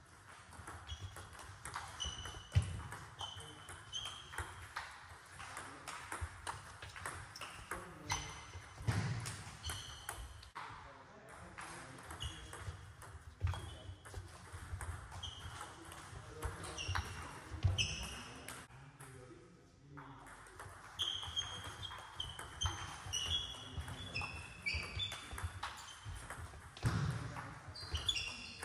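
Table tennis rallies: the ball clicking sharply back and forth off the rackets and the table in quick succession, with short breaks between points.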